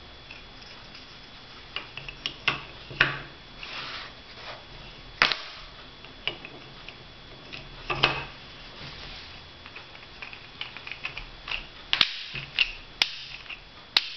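Pieces of a wooden 12-piece burr puzzle clicking and knocking against each other as they are slid into place by hand. The taps come irregularly, with a few sharper knocks about 5 and 8 seconds in and a quicker cluster near the end.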